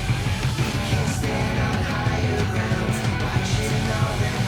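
Rock music with distorted guitar and a heavy, driving beat.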